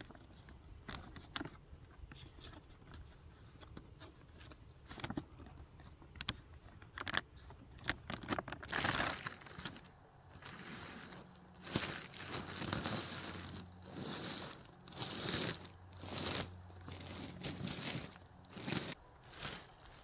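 Plastic tarp crinkling and rustling as it is handled and spread out: small scattered rustles and clicks at first, then from about halfway in a series of louder crinkling bursts, about one a second.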